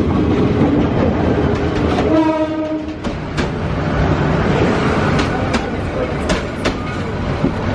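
Diesel passenger train rolling past alongside the platform, a steady rumble with a short horn blast about two seconds in and a few sharp wheel clacks over the rail joints later on.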